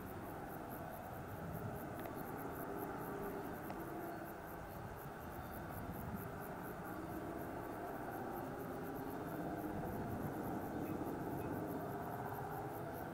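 Distant military helicopter's rotors and turbines, heard as a steady, wavering drone that swells and fades slightly as it flies past.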